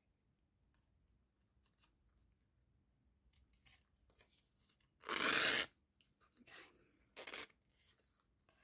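White organza ribbon being pulled through the hole of a paper tag, with faint handling ticks at first, then a loud rasping swish about five seconds in and a shorter one about two seconds later.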